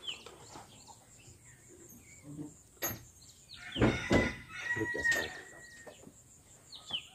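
A rooster crowing once, a long drawn-out call starting a little under four seconds in. Around it, soft rustles and light knocks of a cardboard box being opened and handled.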